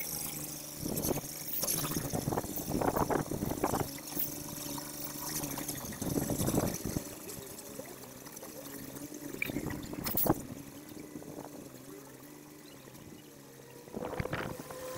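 Old Scania truck's diesel engine revving in repeated surges with rising and falling pitch. There is a short sharp hiss or crack about ten seconds in.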